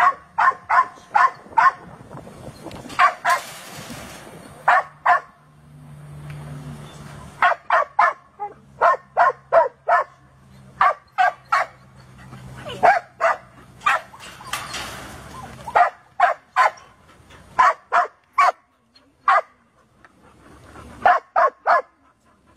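Dogs barking in quick volleys of sharp barks, several a second, with short breaks between. A low steady hum runs under the middle stretch.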